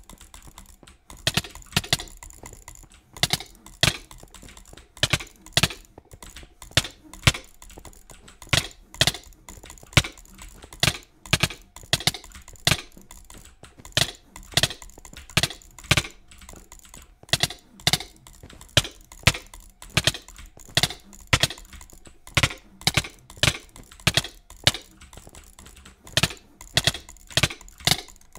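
Clicky switches being pressed and released: sharp clicks in quick pairs and short clusters, about one or two clusters a second.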